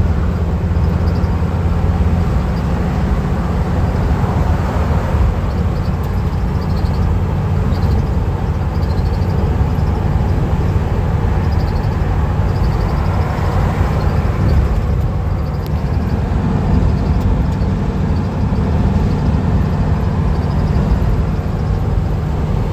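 Steady rumble of a van driving at highway speed, engine and tyre noise as heard from inside the cab.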